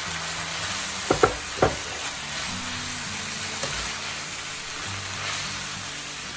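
Stir-fried noodles with chicken and vegetables sizzling in a wok as they are tossed with tongs. There is a steady frying hiss, with three sharp knocks of the tongs against the pan between one and two seconds in.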